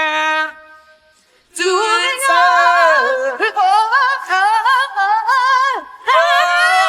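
Unaccompanied female voice singing with wide vibrato and sliding runs. A held note ends just after the start, there is a short pause, then the runs carry on with a brief break near the end.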